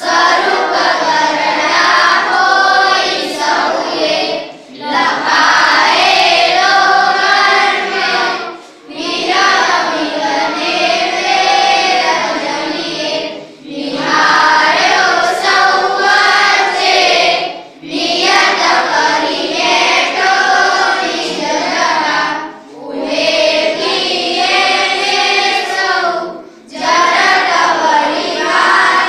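A class of boys and girls singing together in unison without words spoken, in phrases of about four to five seconds with a short breath between each.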